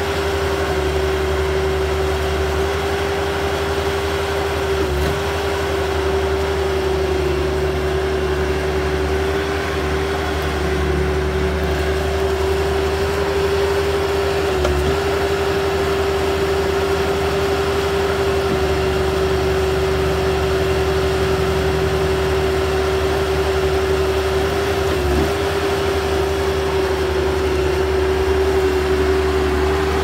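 Bobcat S185 skid steer's diesel engine running steadily while it drives its concrete mixer attachment, with a steady whine over the engine hum that dips briefly about every ten seconds.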